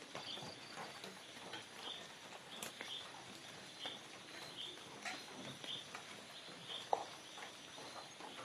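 Tropical forest ambience: a small creature's short, high chirps repeating about once a second, with scattered soft ticks and rustles and one louder, lower call about seven seconds in.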